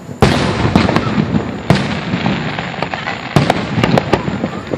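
Aerial fireworks shells bursting in rapid succession: a loud bang about a quarter second in, then a run of sharp cracks and booms, several close together near the end.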